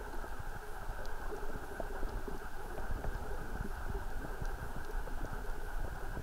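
Underwater ambience recorded with the camera submerged: a muffled low rumble of moving water with irregular soft clicks and knocks.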